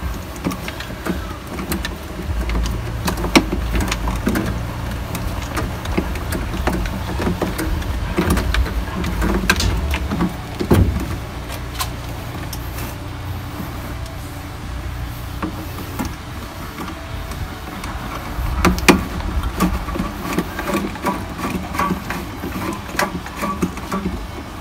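Scattered clicks and knocks of plastic and metal parts being handled as a washing machine's drain motor is fitted to its drain plug and the plug's lock is turned, over a steady low rumble.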